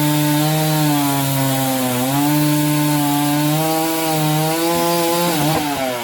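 Chainsaw running at high revs, cutting a log; its pitch sags briefly about two seconds in, then falls away near the end.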